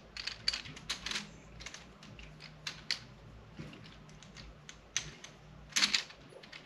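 Joilcan camera tripod's ball head and handle being worked by hand, giving off irregular small clicks and taps, with a quick run of louder clicks about six seconds in.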